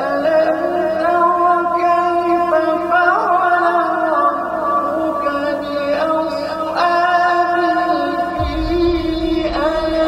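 Dramatic soundtrack music with sustained wordless voices, long held notes shifting every few seconds, starting suddenly. A deep rumble comes in under it about eight and a half seconds in.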